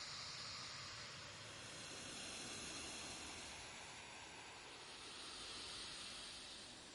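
A faint, steady hiss of noise that swells and eases slowly, with no distinct events.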